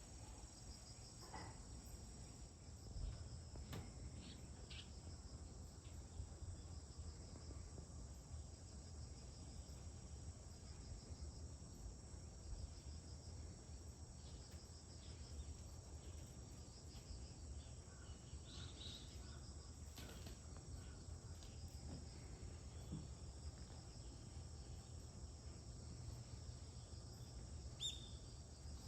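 Faint, steady chirring of crickets, pulsing evenly, over a low rumble. There are a few soft knocks, and a short bird chirp comes near the end.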